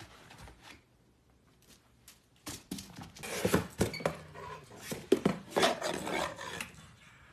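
Box cutter blade scraping and slicing at a cardboard shipping box, with rustling and knocking of the cardboard in short irregular bursts starting about two and a half seconds in.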